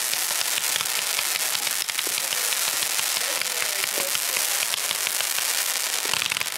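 Ground-launched firework cake firing comets with crackling tails: a loud, dense, continuous crackle of many small pops.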